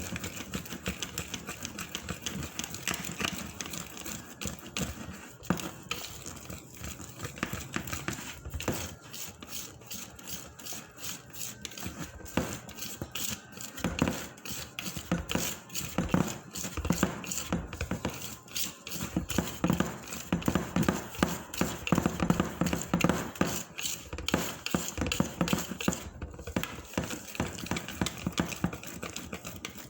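Hotcake batter being beaten by hand in a bowl, the utensil clicking and clattering rapidly and unevenly against the bowl's sides.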